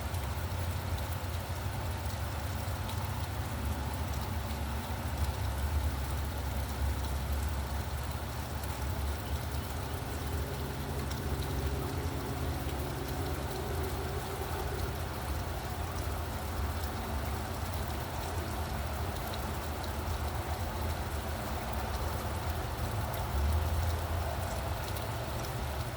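Steady rain falling, with the low rumble of passing road traffic underneath; a vehicle's engine hum rises and fades in the middle, and another low swell comes near the end.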